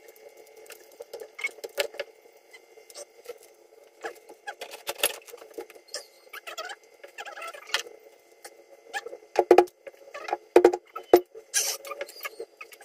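Eating at close range: hands and a spoon working rice and fish on a banana leaf, making scattered small clicks, taps and rustles, with three sharp knocks a little after the middle.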